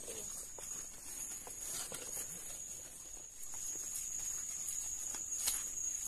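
A steady, high-pitched chorus of forest insects, with footsteps on the trail and scattered small clicks and rustles from leaves and twigs underfoot.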